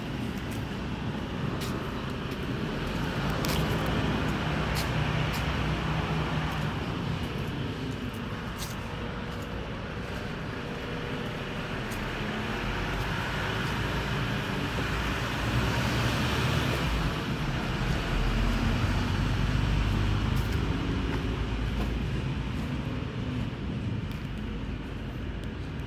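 Road traffic: a steady rumble of passing vehicles that swells twice, a few seconds in and again past the middle, as cars go by.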